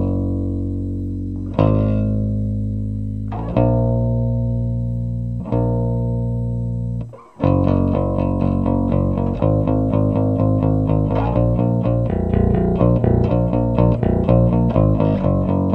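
Electric bass guitar played over a backing rock song: four long held notes, then a sudden short break about seven seconds in, then quick, steady repeated eighth notes.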